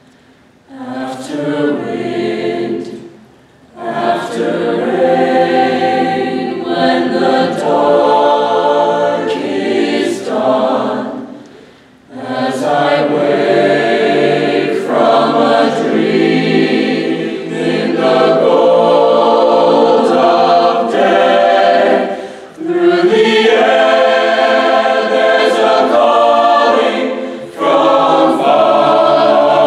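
High school mixed-voice chamber choir singing. The voices enter about a second in and sing in phrases broken by brief pauses every several seconds.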